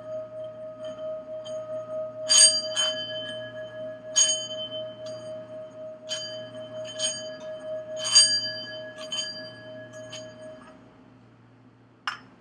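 A singing bowl rings with a steady, wavering tone while brighter bell-like strikes chime over it about ten times; the bowl's tone is cut off about ten and a half seconds in, followed by a single click near the end.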